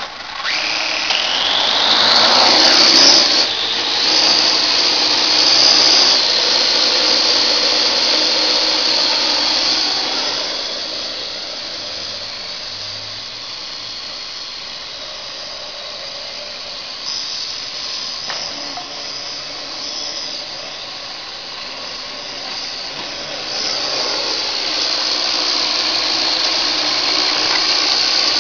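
Parrot AR.Drone 2.0 quadcopter's electric motors and propellers spinning up at takeoff with a rising whine, then a steady high whine and propeller buzz as it hovers and flies. The sound drops somewhat in the middle and grows louder again near the end.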